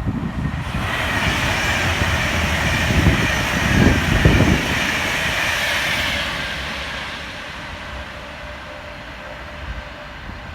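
A train passing along the main line. Its rushing wheel-and-rail noise builds about a second in, is loudest around four seconds, then fades away.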